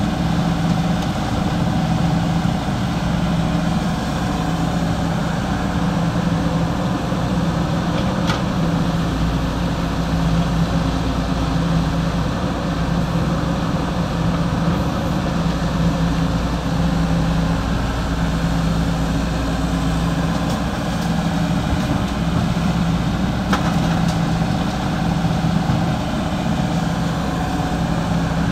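Heavy construction-machine diesel engine running steadily, with a low hum that breaks off and returns every few seconds.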